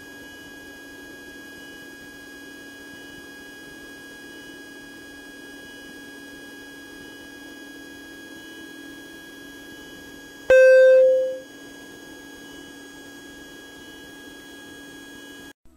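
Steady drone of a Cessna 150 in flight heard inside the cabin, with a faint steady whine over it. About two-thirds of the way through, one loud electronic beep sounds for about a second and fades. The drone cuts off just before the end.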